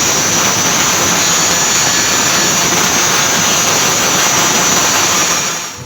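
Angle grinder running under load on steel, a steady loud rushing noise with a constant high whine, tailing off near the end.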